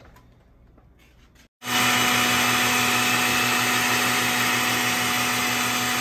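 Chiles frying in hot oil in a pan: a loud, steady sizzle with a low hum under it, cutting in abruptly about a second and a half in.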